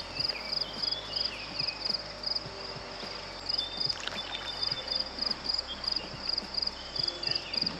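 Insects chirping in a steady, regular pulsing rhythm, high in pitch, with a few short bird chirps now and then.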